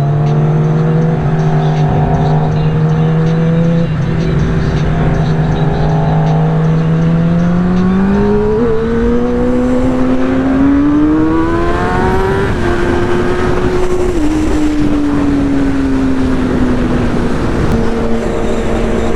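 Motorcycle engine running at a steady cruise, then revving up and climbing in pitch about halfway through, before easing off and slowly falling again toward the end.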